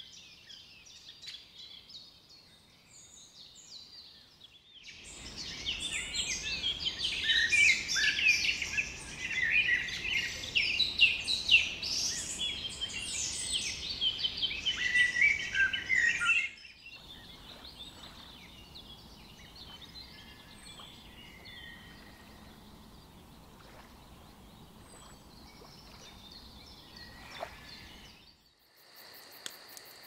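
Songbirds chirping and calling: faint at first, then a loud, dense chorus of many overlapping chirps from about five seconds in, which breaks off suddenly and gives way to fewer, quieter calls. Near the end crickets take over with a steady, even chirping.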